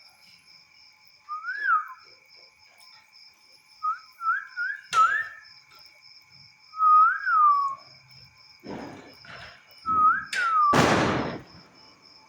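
A person whistling short phrases of a melody, each note rising then falling, over a steady high insect trill. A sharp crack comes about five seconds in, and near the end a louder crack with a hissing tail: firecrackers going off.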